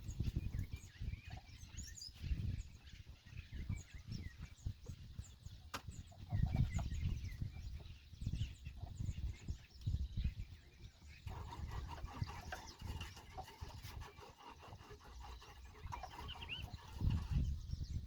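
Birds chirping and calling, over recurring low rumbling on the microphone.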